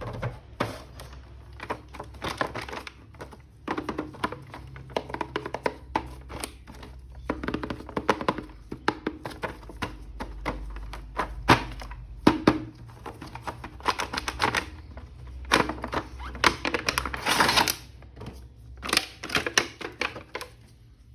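Irregular clicks, taps and rustling of plastic packaging as a plastic action figure is unpacked and handled, with a louder rustle about 17 seconds in.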